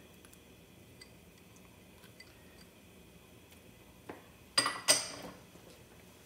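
Kitchenware clinking: a soft knock, then two sharp, ringing clinks in quick succession about four and a half seconds in, with only faint ticks otherwise.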